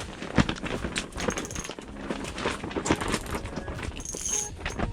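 Fabric walls of a pop-up ice-fishing hut flapping and snapping in strong gusting wind: a dense run of irregular cracks and knocks over a steady wind noise.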